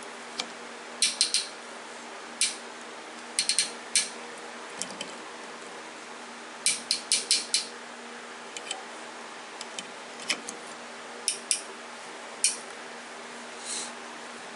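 Hand tap in a T-handle tap wrench being turned to cut threads into a backhoe pin, giving irregular clusters of sharp metallic clicks and ticks. A steady low hum runs underneath.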